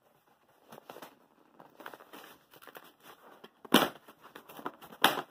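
Cardboard book mailer being torn open along its tear strip and handled by hand: a run of short, uneven tearing and scraping rustles, with the loudest tears near the end.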